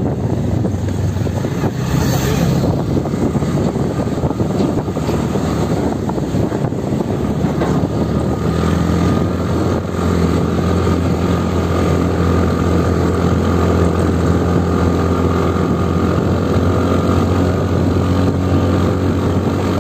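Motorcycle engine running at a steady cruise with wind rushing over the microphone. Wind noise dominates at first; about eight seconds in, a steady engine hum comes through clearly and holds.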